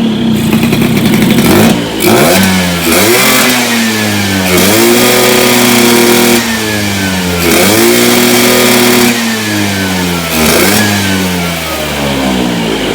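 Tuned Vespa PX two-stroke single-cylinder engine revved four times, each blip held high for a moment and then sinking back toward a choppy idle. Blipped during carburettor jet setting, with the fuel mixture judged too rich.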